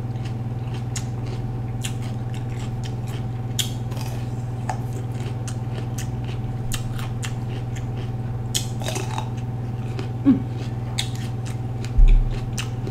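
Raw red bell pepper being chewed: a scatter of short, crisp crunches and wet mouth clicks, over a steady low hum. A low thump near the end.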